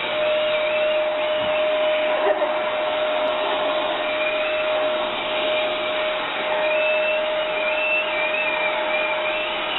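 Vacuum cleaner running steadily: a constant motor whine over the rush of air, with a fainter higher tone wavering up and down above it.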